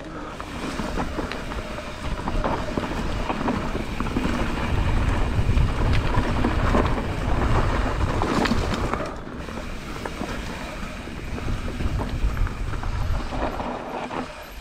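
Mountain bike riding down a dusty dirt trail: wind buffeting the microphone over a steady rumble of tyres on dirt and gravel, with frequent short knocks and rattles from the bike over rough ground.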